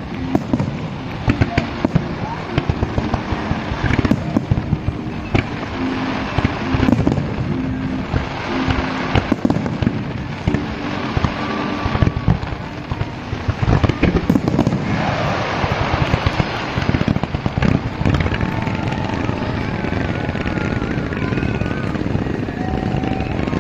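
Fireworks display: a dense, irregular run of bangs and crackles, with the sharp peaks thinning out in the last few seconds.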